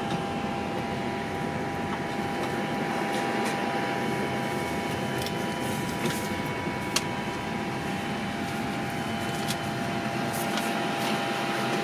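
Steady hum of a parked Airbus A320's flight deck, the air conditioning and equipment fans running, with a few constant tones in it. A few faint clicks sound through it.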